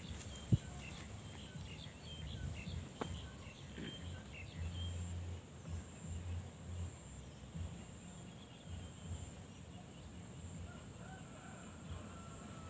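Quiet rural outdoor ambience: a few birds chirping, a steady high-pitched insect drone and an uneven low rumble, with a single sharp click about half a second in.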